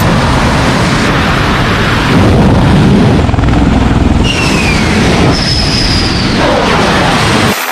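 Loud rushing aircraft noise on a carrier flight deck: a V-22 Osprey tiltrotor hovering, then an F/A-18 jet landing. Several whines fall in pitch as the jet's engines wind down after touchdown.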